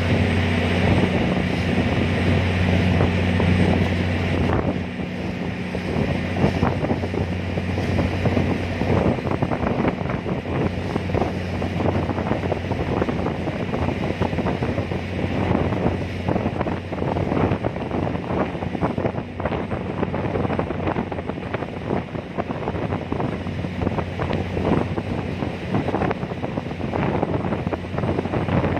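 Strong wind buffeting the microphone on a ferry deck in gusts. For the first four or five seconds a steady low engine hum runs underneath, then it stops.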